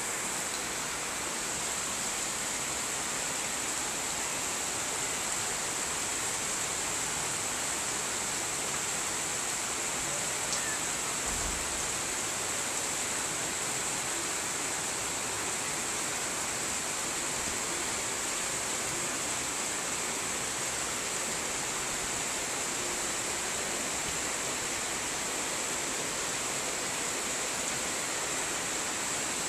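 Heavy rain falling steadily on corrugated tin roofs: a dense, even hiss that does not let up.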